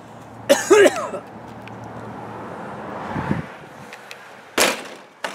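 A man hawking loudly in his throat, a short harsh burst about half a second in. A brief sharp burst follows near the end.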